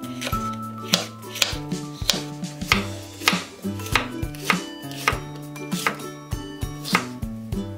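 Kitchen knife chopping red bell pepper on a wooden cutting board: sharp knocks of the blade against the board at about two to three strokes a second, over background music.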